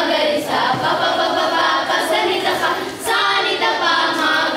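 A group of children, mostly girls, singing a song together, one girl leading into a microphone. The singing carries on throughout, with a brief breath pause about three seconds in.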